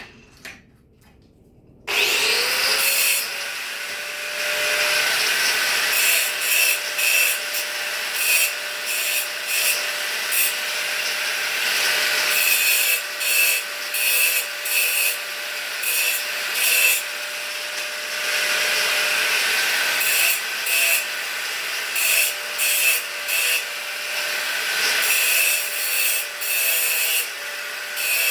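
A hand-held power tool spins up about two seconds in and runs at a steady pitch. It is pressed against the work again and again in short, loud abrasive passes.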